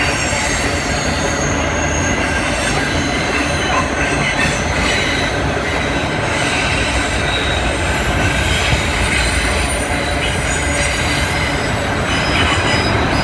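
Empty auto-rack freight cars rolling past on steel wheels, a steady loud rumble with high-pitched wheel squeal over it.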